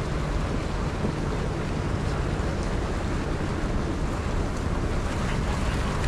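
Steady outdoor background noise with a low rumble, even throughout, with no distinct events standing out.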